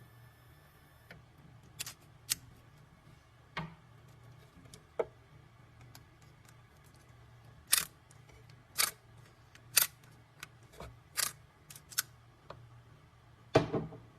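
Irregular sharp clicks and knocks from handling a key and the clamp parts of a CNC key-cutting machine, about a dozen in all with the loudest cluster near the end. A faint steady whine stops about a second in.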